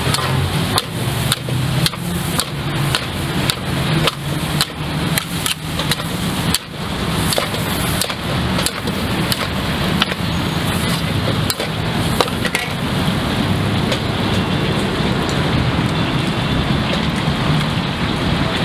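Pad thai stir-frying in a wok: steady sizzling, with a metal spatula striking and scraping the pan about twice a second for the first seven seconds or so, then mostly sizzling with only occasional strikes.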